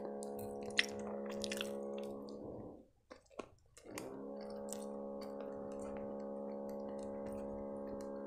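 Mouth sounds of chewing soft strudel pastry: small wet clicks over a steady droning hum. The hum cuts out about two and a half seconds in and comes back about a second later.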